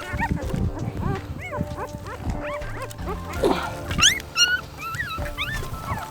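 Newborn puppies squealing and whining: many short, high cries that rise and fall in pitch, with a louder, higher run of cries about four seconds in. Background music plays underneath.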